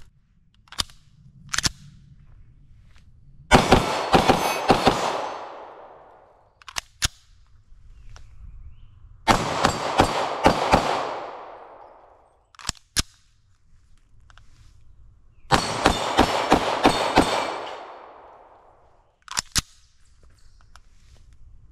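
Rapid strings of 9mm pistol fire from a ported CZ Shadow 2 Compact. There are three strings of several quick shots, about six seconds apart, each trailing off in a long echo, with a few single cracks in between.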